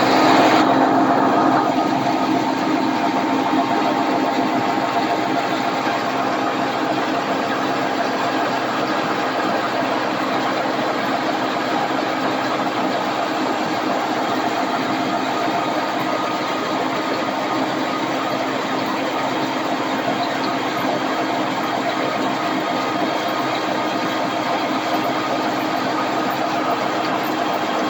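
Heavy farm machinery used in corn harvest running steadily at constant speed: a loud, unchanging mechanical din with several steady tones.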